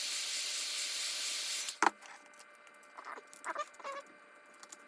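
Heat gun blowing a steady hiss that cuts off sharply a little under two seconds in, followed by a single click. After that come a few short scraping squeaks, as a razor blade works at the cracked glass and its adhesive.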